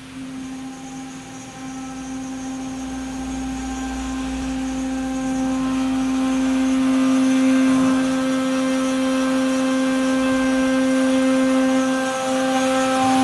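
CNC milling machine's spindle cutting a metal plate with an end mill: a steady pitched whine with a rough cutting hiss above it, growing louder over the first several seconds, with a brief dip near the end.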